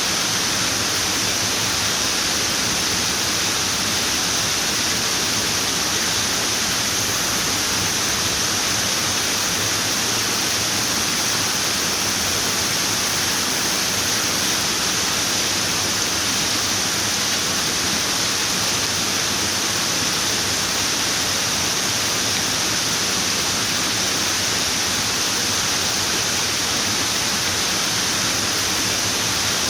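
Running water, a steady even rush with a bright hiss and no changes.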